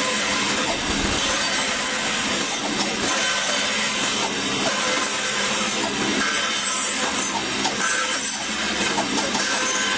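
A hand tool working wood with a steady scraping, kept up without a break.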